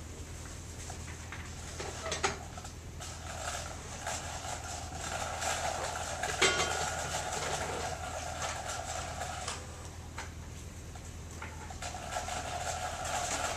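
Quiet classroom room tone: a steady low electrical hum under faint scattered clicks and knocks of small objects, with a faint murmur in the middle and one sharper click about six seconds in.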